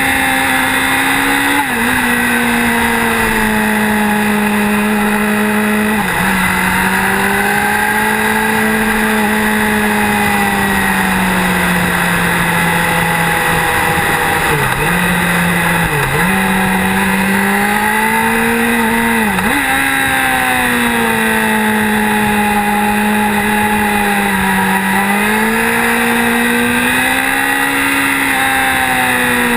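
Motorcycle engine pulling steadily through the bends, heard on board. Its pitch rises and falls with the throttle and drops sharply for a moment about six times, with a constant rush of wind and road noise underneath.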